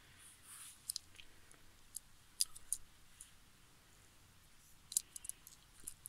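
Faint, scattered plastic clicks and taps from a small plastic toy engine being turned over in the fingers, with a few clustered around two and a half seconds in and again around five seconds in.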